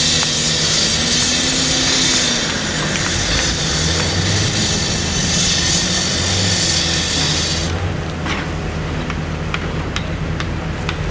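Caterpillar 319C excavator's diesel engine running as it digs, a steady low hum, under loud rock music that cuts off abruptly about eight seconds in. After that the engine continues with a scatter of sharp clicks.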